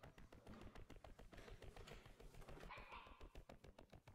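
Faint, brief whine from a German shorthaired pointer puppy about three seconds in, over a run of soft rapid ticks.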